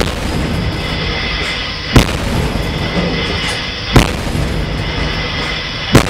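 Frigate's 130 mm A-192 Armat bow gun firing at a steady rate, one loud shot about every two seconds.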